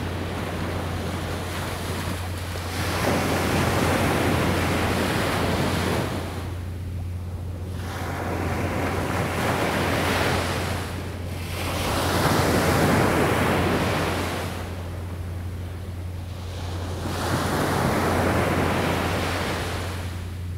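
Small surf breaking and washing up a beach, swelling and ebbing in four waves a few seconds apart, over a steady low hum.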